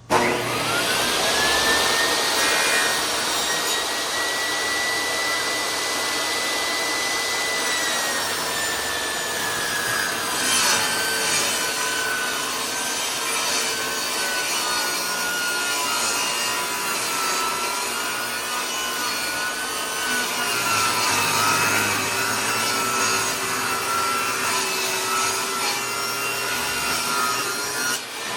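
Table saw switched on, its motor and blade spinning up to a steady whine. About eight seconds in the blade bites into wood and the whine drops and wavers under the load of the cut for about twenty seconds, then begins to climb back near the end as the cut finishes.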